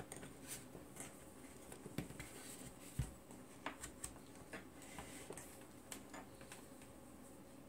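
Faint scattered clicks and light knocks of a Fluke 117 digital multimeter being handled and its rotary selector dial turned, with the deepest knock about three seconds in.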